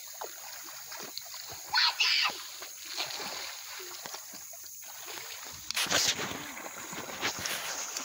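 Water splashing and sloshing as children swim and wade through shallow water, with a loud splash about six seconds in. A short high-pitched child's cry comes about two seconds in.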